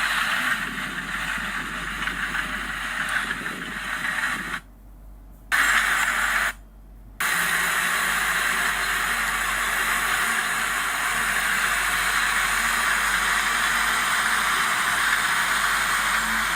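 Steady hissing noise of heavy earthmoving machinery at work. The sound cuts out abruptly twice, for about a second each time, around five and seven seconds in.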